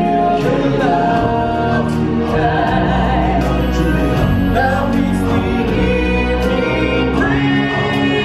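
Live stage-show music: a singer with a microphone holding long, gliding notes over a full amplified backing with a steady bass.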